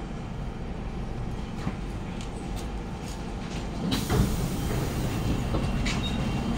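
Interior hum of a Siemens C651 metro train standing at a station, with a few light clicks. About four seconds in, the passenger doors open and a sudden rush of louder noise comes into the car.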